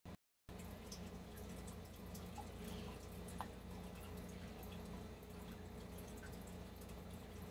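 Faint small clicks and taps of hard 3D-printed plastic parts and a metal hex key being handled while screws are fitted into a vane supercharger housing, the sharpest click about three and a half seconds in, over a steady low hum. The sound starts about half a second in.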